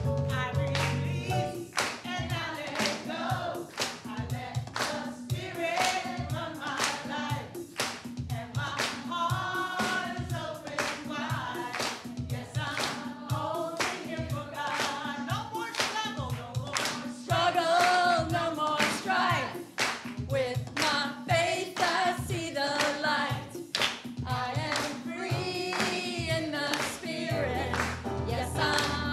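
A congregation singing together with keyboard accompaniment, clapping in time at about two claps a second.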